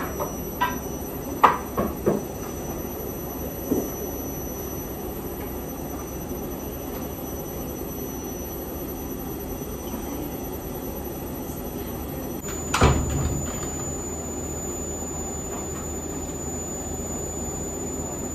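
Tumble dryer running steadily in the background with a faint high whine. Light knocks of decorations being set down on a table come in the first few seconds, and a louder thump about thirteen seconds in.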